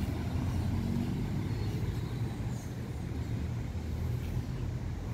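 Low, steady rumble of road traffic.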